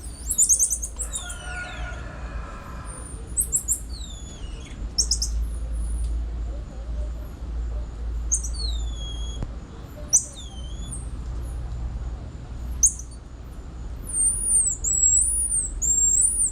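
Squirrel monkeys calling: many short, very high-pitched chirps and whistled peeps, some sweeping up or down, clustered near the start and near the end. A steady low rumble runs underneath.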